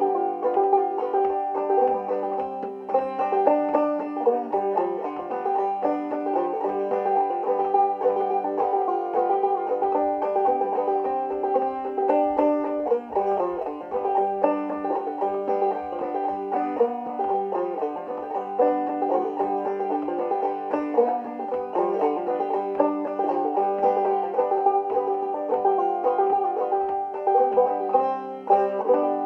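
1954 Gibson RB-100 five-string resonator banjo played clawhammer style: a continuous tune of quick plucked notes in a steady rhythm.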